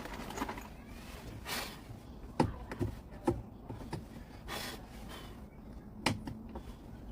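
A few brief scraping strokes and light clicks of a tool digging paint out of screw heads.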